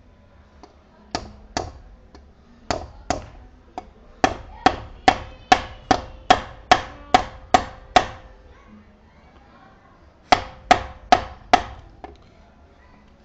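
Small sledgehammer striking a steel leaf-spring clamp to bend it closed, each blow with a short metallic ring. The blows come as two pairs, then a run of about ten at a little over two a second, then four more near the end.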